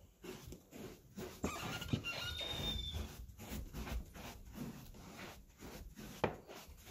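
Soft footsteps of a person walking in socks on carpet, with cloth rustling and handling knocks, and a few brief high squeaks about two seconds in.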